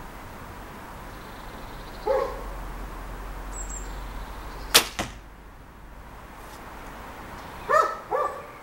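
A 50 lb Hwarang bow is loosed once, about five seconds in: a sharp snap of the string, followed about a third of a second later by a second, quieter crack. A dog barks once about two seconds in and twice near the end.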